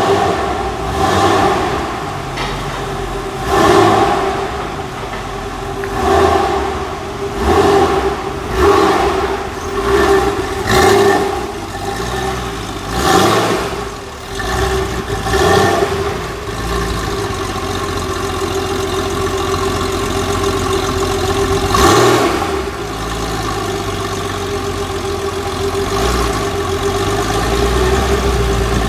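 Porsche 993 Carrera 4S's air-cooled 3.6-litre flat-six, breathing through an aftermarket exhaust, revved in a series of short throttle blips every second or two, then settling to a steady idle about halfway through, with one more blip later on.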